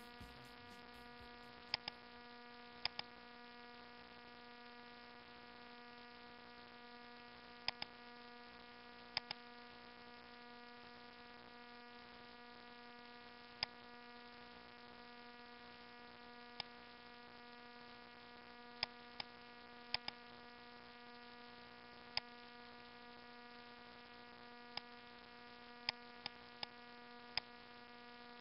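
Steady electrical hum picked up by a computer recording setup. Sharp computer-mouse clicks sound about twenty times across it, many as quick double-clicks.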